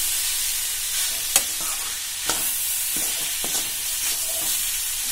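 Grated coconut and sugar sizzling in ghee in a steel pan while a metal spatula stirs and scrapes it, roasting until the coconut's milk dries off. The spatula clicks against the pan now and then, most sharply about a second and a half in.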